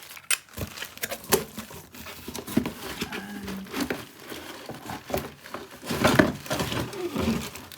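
Handling noise from G-clamps and their packaging: a run of irregular clicks and knocks with some crinkling, and a louder rustle about six seconds in.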